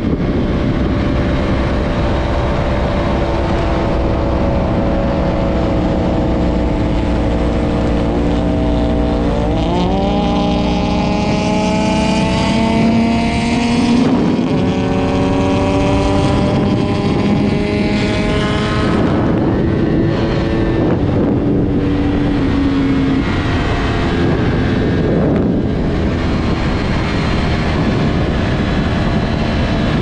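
Yamaha R1 RN22 crossplane inline-four sportbike engine running under load at road speed, heard onboard. The engine note climbs as the bike accelerates, then drops in steps at several gear changes in the second half.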